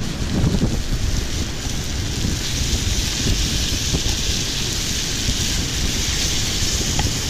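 Snook fillets frying in a pan over a campfire: a steady sizzle that grows louder from about two and a half seconds in, over a constant low rumble.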